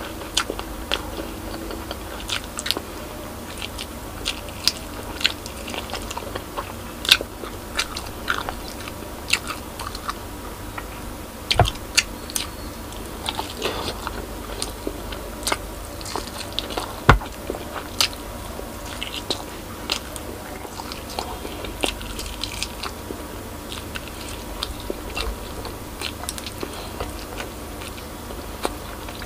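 Close-up chewing and biting of braised pork spare ribs, meat pulled off the bone by mouth, with irregular sharp wet mouth clicks and smacks, a few louder than the rest.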